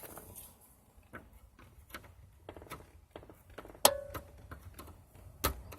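Scattered light clicks and taps of a test-light probe against the OBD2 port's metal pins. About four seconds in there is one sharp metallic click that rings briefly, and a duller knock comes near the end.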